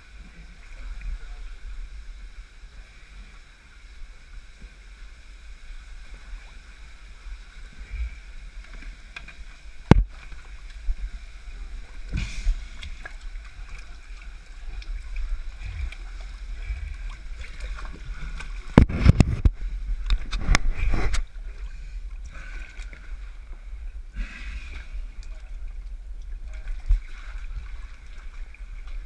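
A swimmer moving through water with a pack: irregular splashing and sloshing close by, over a steady low rumble. There is a sharp knock about ten seconds in, and the loudest burst of splashing comes a little past halfway.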